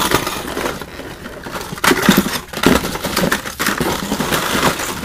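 A hand rummaging through a cardboard box of packaged fishing lures: plastic blister packs and cardboard packaging rustling and crinkling, with several sharper clacks and knocks at irregular moments.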